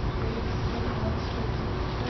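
Steady low rumble of room noise with a faint voice far from the microphone.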